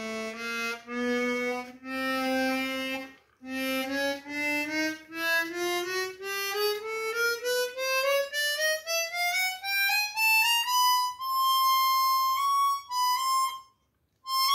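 Seydel Saxony orchestra chromatic harmonica in C with stainless steel reeds, played one note at a time up a chromatic scale from its low G, checking that every note sounds. The notes climb steadily in pitch, slow at first and then shorter and quicker, with a longer held note near the end.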